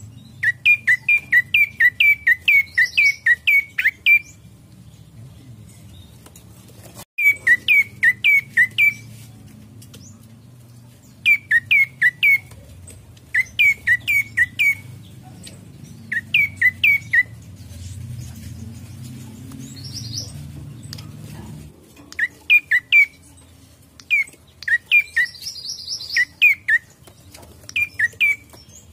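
Prenjak coki singing: bursts of sharp, quick down-slurred chip notes, several to a burst, repeated every few seconds.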